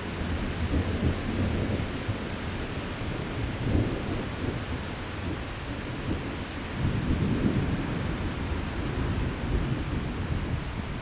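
Strong gusty wind blowing, rumbling on the microphone in irregular surges over a steady rushing hiss.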